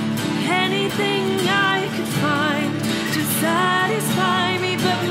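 A song with a woman singing a slow melody with wavering, held notes over guitar accompaniment.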